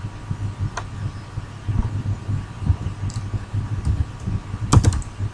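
Computer keyboard keys clicking, a quick run of four or five keystrokes near the end and a single click about a second in, over a low steady hum.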